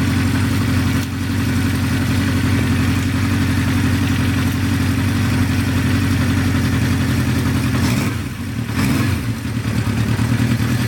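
Honda CB550 Four's air-cooled inline-four engine idling steadily after being started for the first time in a long while. About eight seconds in, the engine speed briefly drops and then picks back up.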